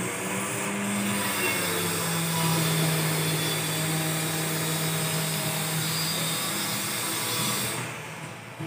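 Power tool from renovation work in the flat upstairs, running steadily with a constant hum and dying away near the end.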